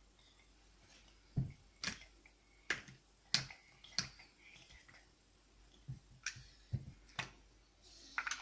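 Large plastic toy building blocks clicking and knocking against each other as they are handled and pressed together, about ten sharp clicks at an uneven pace.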